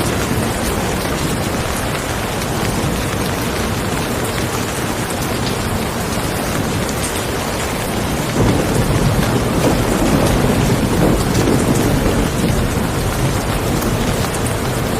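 Steady heavy rain falling, with a deep low rumble swelling up a little past halfway and fading after a few seconds.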